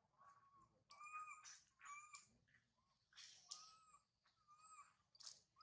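Young macaque crying: a series of short, faint, arched whimpering calls, about one a second. These are the distress cries of a juvenile left by its mother.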